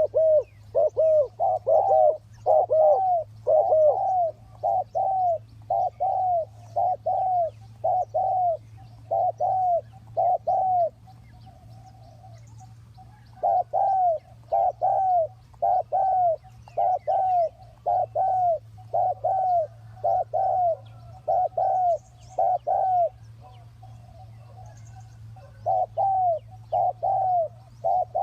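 Spotted dove cooing in long runs of short, arched coos, about two a second, breaking off briefly twice, about 11 and 23 seconds in. A faint steady low hum lies underneath.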